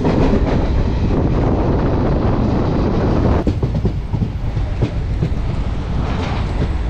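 Passenger coaches of an express train running at speed, heard from an open doorway: a steady rumble of wheels on the rails with clickety-clack. It softens slightly about three and a half seconds in.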